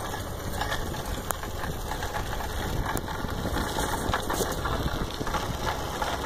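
Steady low rumble of wind and movement on a handheld phone's microphone while riding a bicycle, with scattered small clicks and rattles.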